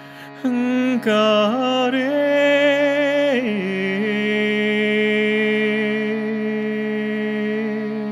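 Overtone singing over the steady drone of a shruti box. A held low voice enters about half a second in, with a high overtone that steps through a melody for the first few seconds, then drops to a lower held note that runs on to near the end.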